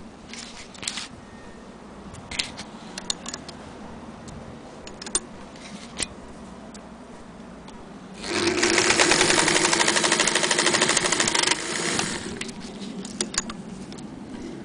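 A Singer 201K electric sewing machine runs at speed for about three seconds, stitching through a strip of leather, and then slows to a stop. Before it starts and after it stops there are scattered small clicks and taps.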